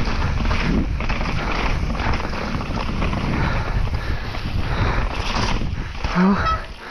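Wind buffeting the microphone and tyre and trail rumble from a Trek Remedy 7 trail mountain bike being ridden at speed. A short rising tone cuts in about six seconds in.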